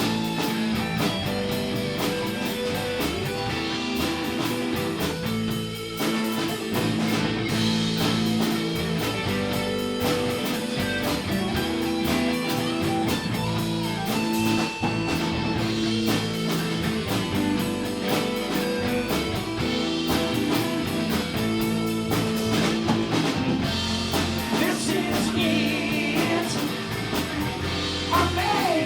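Live rock band with a blues feel playing an instrumental break: electric guitar over bass and drum kit, with held notes and a steady beat and no words sung.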